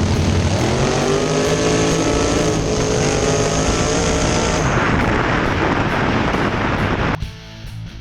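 Drag race car engine at full throttle, accelerating hard down the track; its pitch climbs and steps back down twice at gear changes. The sound drops away abruptly near the end.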